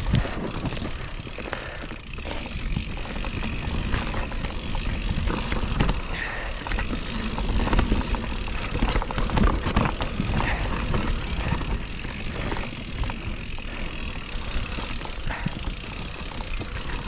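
Mountain bike riding fast down a dirt trail: continuous rumbling tyre noise, with frequent rattles and knocks as the bike runs over bumps.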